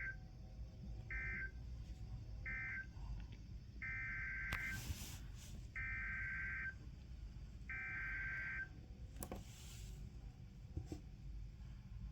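Emergency Alert System SAME data bursts with their buzzy, warbling digital sound. First come three short bursts about a second apart: the end-of-message code closing the previous alert. Then come three longer bursts, each a little under a second and about two seconds apart: the header coding the next alert, a tornado warning. A couple of sharp clicks fall between the bursts.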